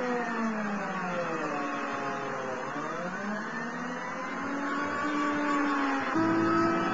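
Vehicle engine running under load as it works a crane boom lifting the Lance launch fixture. Its pitch sinks over the first few seconds, climbs back, then steps up near the end.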